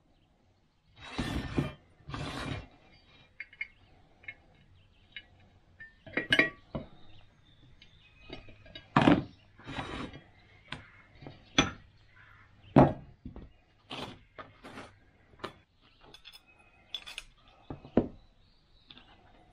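Small metal parts of a sharpening-stone holder clinking and knocking as they are handled and fitted together by hand: rods, screws, knobs and the metal tray set down on a cutting mat. Irregular sharp clinks, with two longer scrapes about a second and two seconds in.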